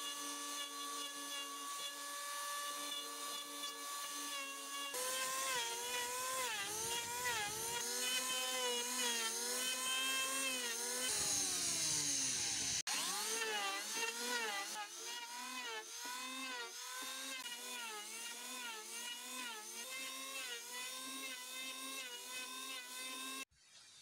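Electric hand planer running on a teak board: a steady high whine for the first few seconds, then cutting, with the motor's pitch dipping and recovering pass after pass over a hiss of shavings. Its pitch sags once, the sound breaks off briefly, then the planing resumes until it stops abruptly shortly before the end.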